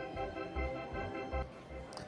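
Background music: a song with held chords and a steady low beat, dropping away about one and a half seconds in.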